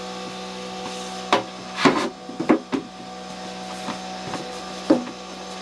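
Several sharp wooden knocks and clunks, clustered between about one and three seconds in with one more near the end, as a wooden shelf board is worked into place in a 2x4 kitchenette frame. A steady electrical hum runs underneath.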